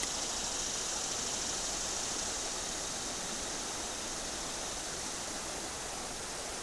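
River current rushing over a shallow riffle, a steady hiss of running water. The river is running high and pushing heavy after rain.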